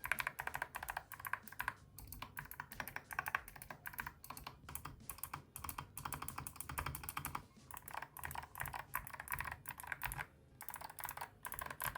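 Steady typing on a mechanical keyboard with Gateron Melodic clicky switches: a dense run of crisp clicks from each switch's click mini-plate, paused briefly twice. The click comes on the press; the switch loses its sound on release, unlike clicky Kailh switches.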